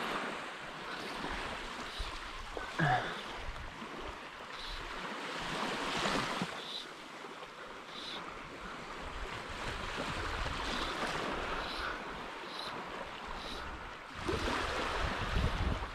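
Small waves lapping and splashing around the wading angler, with wind on the microphone growing louder about two seconds before the end. A short, high cry falling in pitch stands out about three seconds in.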